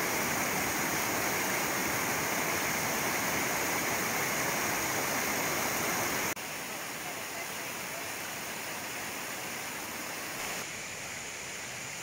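Steady rush of running water that drops suddenly to a quieter level about six seconds in.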